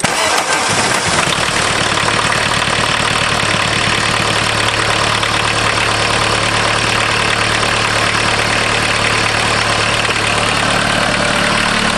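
A Volkswagen diesel engine cold-starting on glow plugs with the cold start lever set: it comes in suddenly and then runs at a steady idle.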